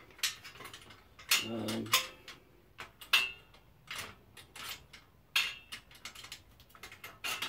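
Irregular metallic clinks and knocks of hand tools and clamps being handled on a workbench, a dozen or so sharp strokes spaced unevenly, with a short grunt-like vocal sound about a second and a half in.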